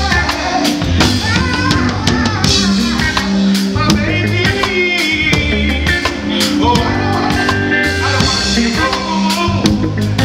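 Live reggae band playing loud through a concert PA: drum kit and heavy bass, with a singer's voice coming in over the music at times.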